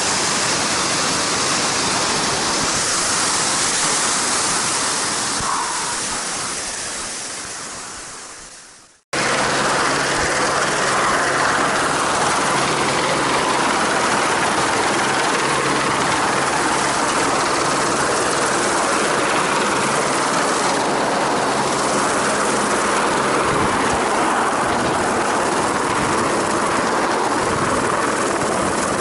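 Waterfall rushing steadily, fading out about nine seconds in. After a sudden cut comes a steady mechanical noise with a low hum, like an engine running, which lasts to the end.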